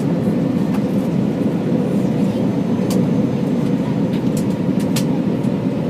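Steady drone of engine and airflow noise inside an airliner's cabin in flight, with a faint steady hum and a few light clicks.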